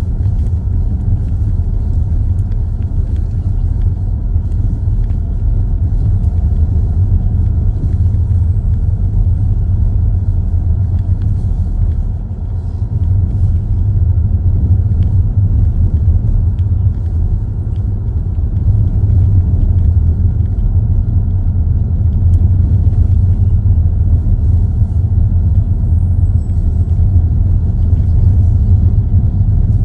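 Steady low road rumble of a car driving, tyre and engine noise heard from inside the cabin, easing briefly about twelve seconds in.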